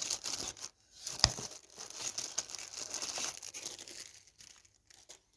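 Small package being opened and handled by hand, its wrapping crinkling, with one sharp click about a second in.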